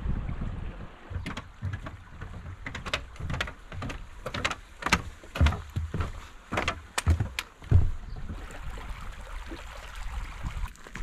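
Footsteps knocking on the wooden planks of a footbridge, irregular and hollow, some deep and some sharp, dying away near the end. A stream runs steadily underneath.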